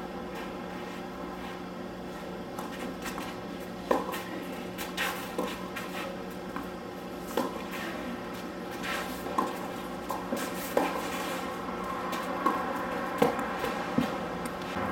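Scattered light knocks and scuffs close by, irregularly spaced from about four seconds in, over a steady low hum.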